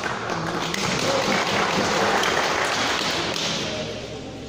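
Crowd applauding, the clapping swelling over the first two seconds and then dying away.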